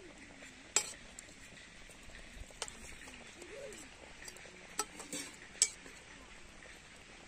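Metal ladle stirring fish curry in a metal pot, knocking against the pot several times with short sharp clinks, the loudest about a second in and again just before six seconds. Underneath, the simmering gravy gives a faint steady bubbling hiss.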